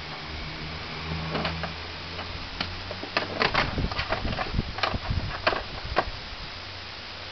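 Irregular clicks and light knocks as a plastic Pelican Bass Raider boat on a car's roof rack is handled and pushed from below, thickest between about three and six seconds in.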